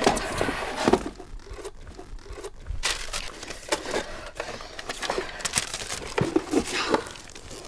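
Rummaging through a box of papers and clothing: irregular rustling and crinkling with scattered light knocks.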